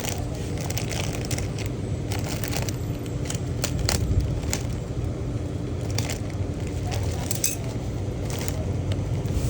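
Packaging crinkling and crackling as a parcel is opened by hand, with irregular sharp crackles over a steady low hum.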